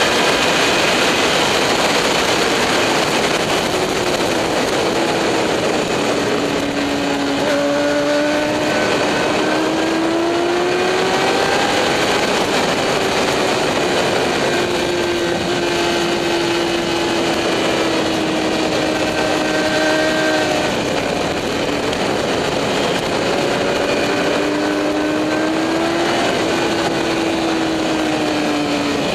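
Onboard sound of a sport motorcycle lapping a race track, with heavy wind rush over the engine note. The engine pitch climbs and falls as the rider accelerates and rolls off through the corners.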